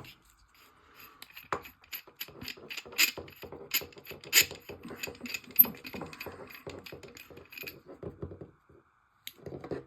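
Irregular clicking and tapping as the parts of a compressor's dry-pack filter tube are handled, several small clicks a second, stopping near the end.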